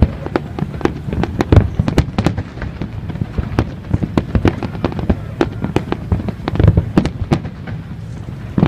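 Fireworks going off: a rapid, irregular series of sharp bangs and crackling pops over a steady low rumble.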